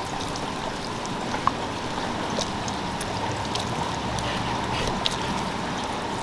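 A sulcata tortoise chewing a mouthful of strawberry: a few faint, sharp wet clicks over a steady, even hiss of background noise.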